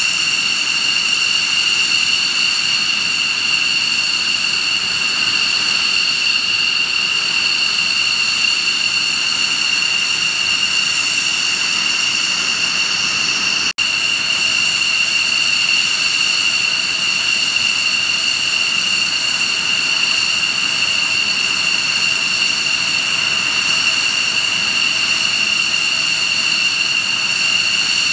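Several fighter jet engines running at idle: a steady high-pitched turbine whine with several piercing tones over a constant rush, broken by a momentary gap about halfway through.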